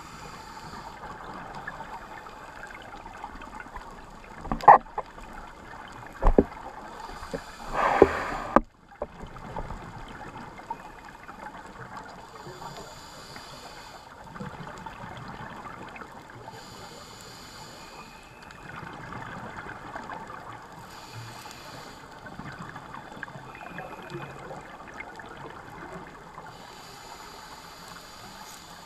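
Underwater sound of a scuba dive heard through the camera's housing: a diver's regulator exhaust bubbles gurgle in recurring rushes every four to five seconds over a steady watery hiss. Two sharp knocks come about five and six seconds in, then a louder rush around eight seconds that cuts off suddenly.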